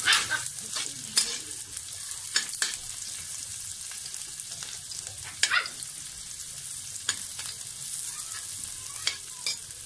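Chopped onion sizzling in hot pork lard in a metal wok, with a steady frying hiss. A slotted metal spatula scrapes and clicks against the pan every second or two as it is stirred.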